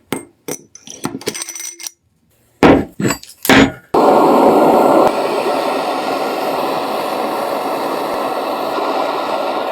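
Metal parts clinking and knocking while being handled, then a few louder knocks. From about four seconds in comes a steady rushing noise that is loudest for its first second and then holds level.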